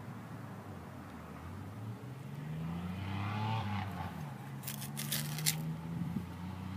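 A motor vehicle's engine hums, its pitch rising about two seconds in and then holding steady. Over it, a hand trowel scrapes in stony clay, with a quick run of sharp clicks of metal on rock about five seconds in.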